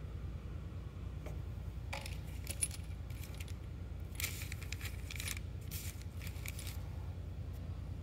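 A small aluminium handlebar switch handled on a plastic bag: crinkling plastic and light clinks in two bursts of a second or two each, after a single click about a second in. A steady low hum runs underneath.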